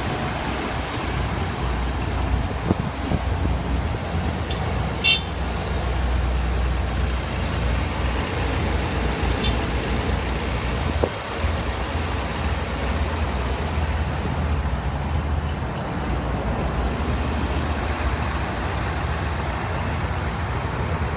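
The truck's 6.7-litre Power Stroke diesel engine runs steadily with a low rumble. A brief high-pitched tone sounds about five seconds in, and a fainter one comes near ten seconds.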